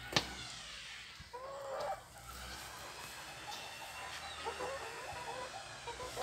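Bantam Cochin hen clucking in a few short calls, the clearest one about a second and a half in, with a sharp click just after the start.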